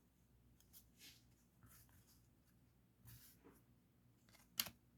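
Faint sliding and rustling of trading cards being flipped through by hand, with one sharp tap near the end.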